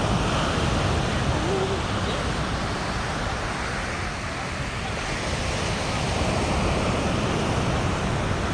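Ocean surf breaking on a sandy beach, a steady wash of noise that swells and eases over a few seconds, with a deep rumble underneath.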